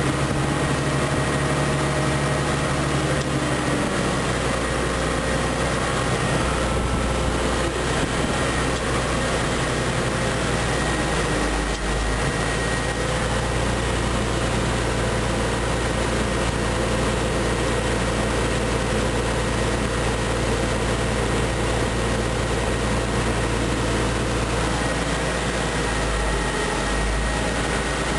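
International Harvester 1066 tractor's turbocharged six-cylinder diesel engine running steadily, its low pitch shifting a few times as engine speed changes, with a thin steady high whine throughout.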